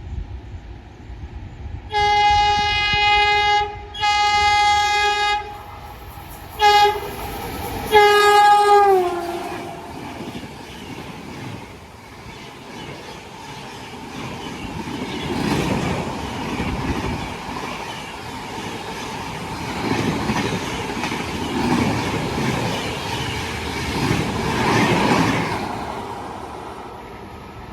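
Indian Railways express train passing at speed. Its locomotive horn sounds two long blasts, a very short one, then a final blast whose pitch drops as the locomotive goes by. The coaches then rush past with wheels clattering over the rail joints, fading near the end.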